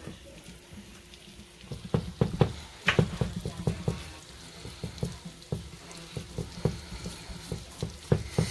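Hands pressing and flattening raw ground beef mixture across the bottom of a cast iron skillet: wet squishing with many irregular small taps and thumps, starting about two seconds in.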